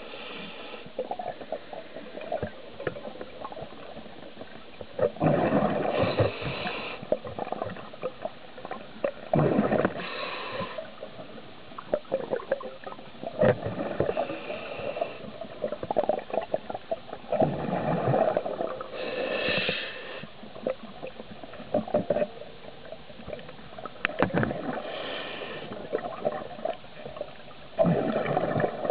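Scuba diver breathing through a regulator underwater: bursts of exhaled bubbles every few seconds, with scattered small clicks and knocks in between.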